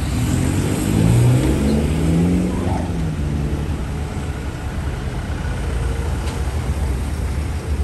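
A car's engine and road noise running steadily, with the engine note rising in pitch from about a second in as a vehicle accelerates, then settling back into a low rumble.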